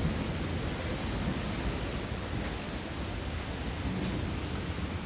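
Steady hiss of rain with a low rumble underneath and a few faint scattered ticks.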